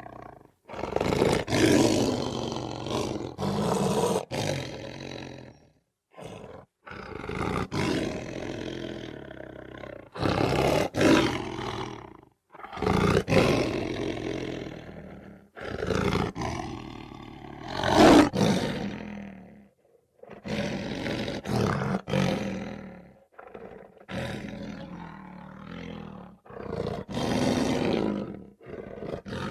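Big cats roaring: a series of about nine loud roars, each one to a few seconds long, with short breaks between them.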